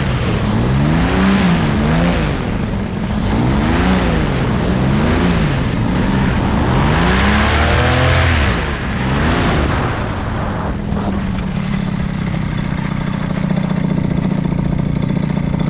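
Paramotor engine running in flight, its pitch rising and falling again and again as the throttle changes, then settling to a steady, lower drone about ten seconds in, with wind rushing over the microphone.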